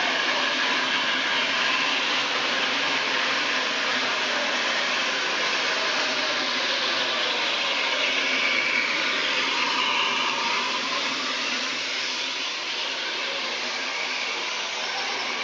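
Steady, loud hiss of escaping steam from a J94 Austerity 0-6-0 saddle-tank steam locomotive as it passes slowly alongside.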